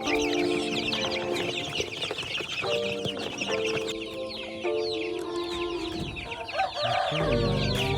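A flock of young kampung chicks peeping constantly, many short high chirps overlapping, over background music with held notes.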